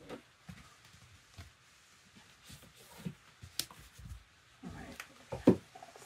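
Books being handled on a shelf: pulled out, slid and set down, with scattered light knocks and rustles and one louder thump about five and a half seconds in.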